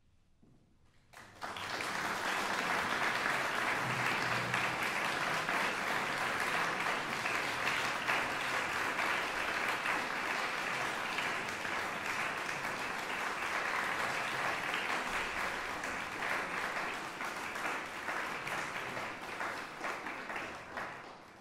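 Audience applauding, breaking out suddenly about a second in after near silence, then clapping steadily before tapering off at the very end.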